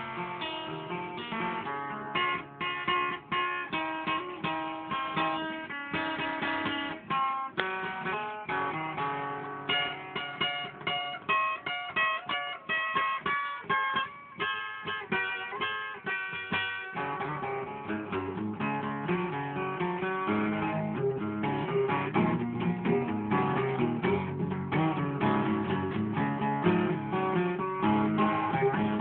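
Acoustic guitar playing an instrumental break of quick picked notes, turning to fuller chords with more bass a little past halfway.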